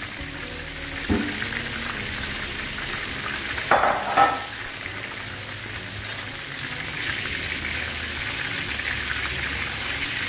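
Flour-coated fish fillets frying in hot oil: a steady sizzle that grows a little denser after about seven seconds, with a brief clatter about four seconds in.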